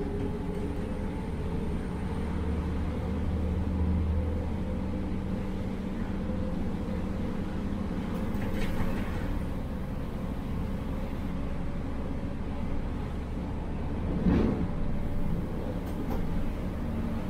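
Regional train running along the track, heard from the driver's cab: a steady low drone of the drive and wheels on the rails, with two short louder knocks, about halfway through and again near the end.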